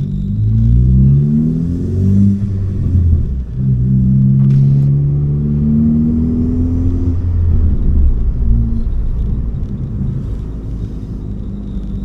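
Ford Focus ST's turbocharged four-cylinder engine, fitted with a big rotated turbo kit and a catless downpipe, pulling under acceleration: its pitch climbs in quick steps over the first couple of seconds, then rises more slowly, and drops off about eight seconds in to a lower, steadier run. There is a short sharp click about four and a half seconds in.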